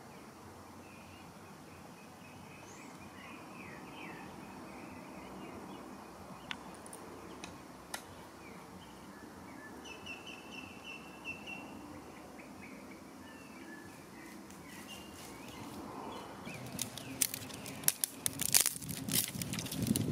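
Quiet woodland ambience with birds chirping on and off. Near the end come a run of sharp cracks and rustling as a bundle of dry twigs is gathered and snapped.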